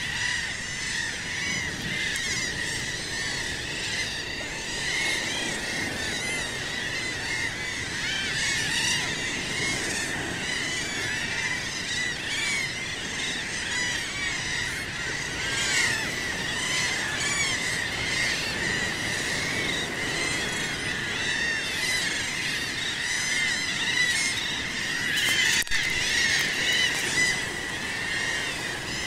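A large seabird colony calling: a dense, unbroken chorus of many short, arched squawks overlapping one another, over a low steady rush of sea.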